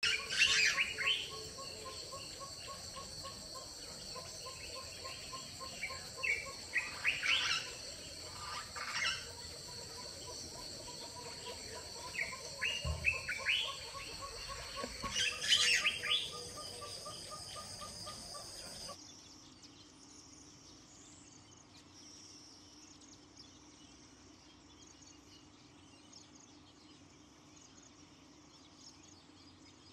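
Birds chirping again and again over a steady high insect drone. About nineteen seconds in the sound cuts to a quieter background of faint insects and a low steady hum.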